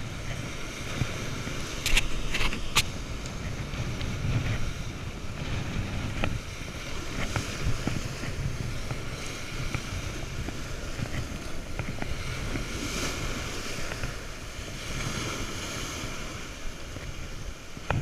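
Strong wind buffeting the microphone with a steady low rumble, over surf washing up the sand. Two sharp clicks come about two seconds in.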